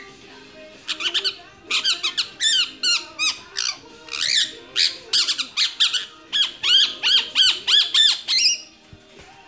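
Blue Indian ringneck parakeet singing: a quick run of short, arching chirps and whistles, about three a second, from about a second in until near the end.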